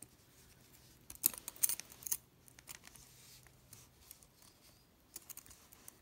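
Light metallic clicks and taps of a metal clasp purse frame and its swinging handle being handled and opened, a cluster about a second in and a few more near the end.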